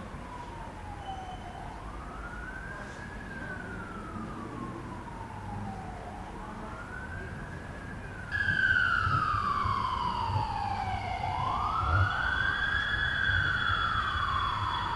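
A siren wailing, its pitch slowly rising and falling about once every five seconds. It gets louder about eight seconds in.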